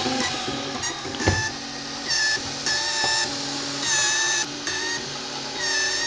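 3D printer's stepper motors whining in short pitched runs that start, stop and jump in pitch as the print head moves during a print. There is a sharp click about a second in.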